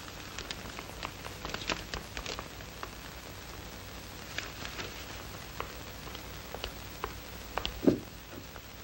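Paper rustling and crackling in scattered short bursts over a steady hiss, with one louder thump near the end.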